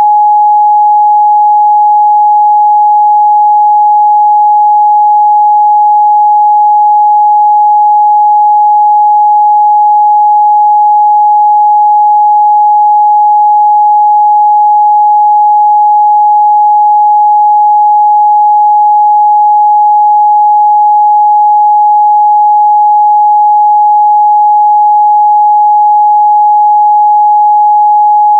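A steady, loud 838 Hz sine-wave test tone, one unwavering pitch with no other sound.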